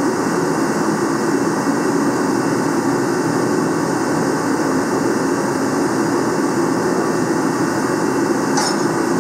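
Steady, loud mechanical drone with an even rushing hiss, like a running blower or heater, with a short high hiss near the end.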